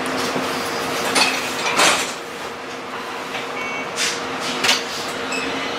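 Interior of a Variobahn low-floor tram standing at a stop: the steady hum of its onboard equipment, with several sharp knocks and clunks and a brief beeping about four seconds in, as the doors close for departure.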